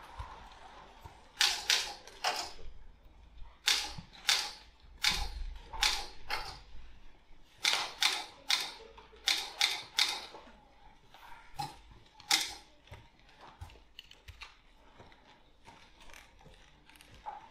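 A typewriter being typed on: irregular sharp keystrokes, often several in quick succession, becoming fainter and sparser about three-quarters of the way through.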